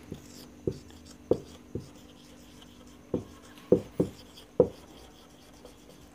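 Marker pen writing on a whiteboard: a string of short, sharp, irregular strokes as the letters are written, a few louder than the rest about three and a half to four and a half seconds in.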